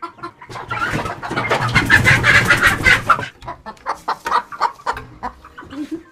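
Chickens squawking and clucking in a coop as one is being grabbed, with a loud flurry about a second in that lasts some two seconds before settling into scattered clucks.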